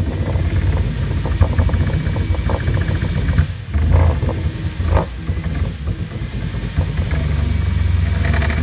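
Stepper motors on a ball-screw CNC gantry driving a laser engraving head: a low buzzing hum that jumps in pitch with each change of move, with bursts of rapid ticking as the head zigzags back and forth.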